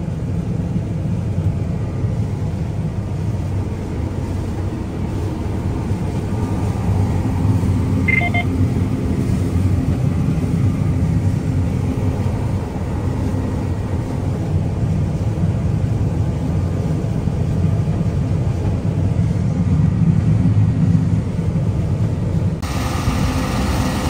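A John Deere combine running steadily while harvesting soybeans, heard from inside the cab as a deep, even rumble. A short high tone sounds about eight seconds in, and near the end the sound turns brighter and hissier.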